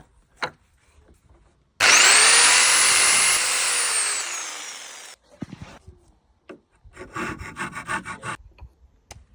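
An electric power saw spins up to speed and cuts wood, then its motor winds down and stops. A few seconds later comes a short run of rapid, even rasping strokes on wood.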